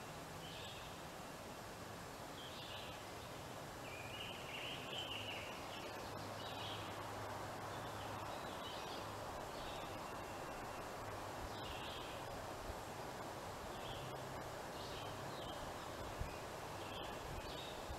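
Woodland ambience: small birds chirping in short high calls every second or two over a steady background hiss, with a faint low drone underneath.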